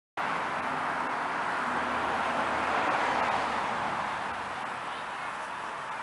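Steady outdoor background noise, an even hiss that starts abruptly just after the start and holds without any distinct event.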